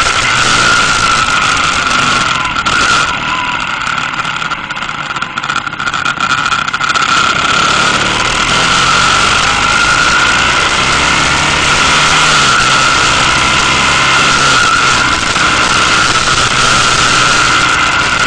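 Motorcycle engine running at road speed under heavy wind rush over the microphone. The sound eases off for a few seconds about three seconds in, then builds again.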